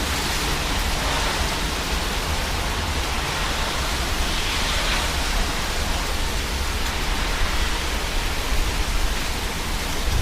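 Strong gusty wind buffeting the microphone: a steady low rumble under a broad hiss that swells with the gusts, the storm's rear-flank winds blowing in behind a thunderstorm.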